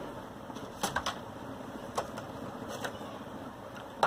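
Cardboard product box and its plastic packaging being handled during an unboxing: a handful of light clicks and taps, with a sharper tap near the end, over a steady background hum.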